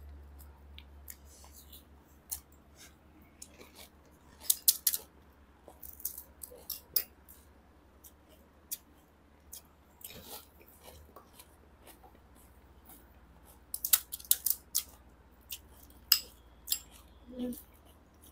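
Crisp, hollow pani puri shells cracking as fingers poke them open and they are bitten into, heard as scattered sharp crackles that come in quick bunches.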